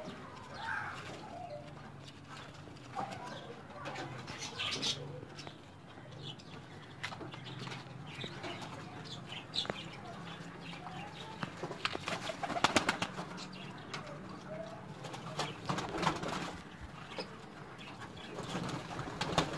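High-flying pigeons cooing, with several short bursts of wing flapping. The loudest flapping comes about two-thirds of the way through.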